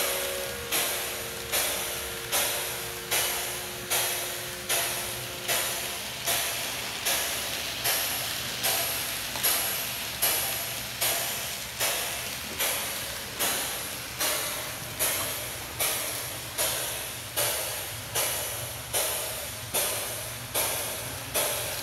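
Steam locomotive sound: a chord of steady whistle tones fades out in the first few seconds, under even, hissing exhaust chuffs at about four every three seconds.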